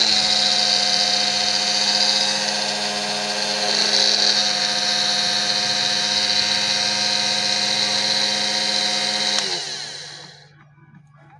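Small electric power tool fitted with a mini angle-grinder adapter, running at a steady speed with a high gear whine, then switched off and spinning down with falling pitch about nine and a half seconds in.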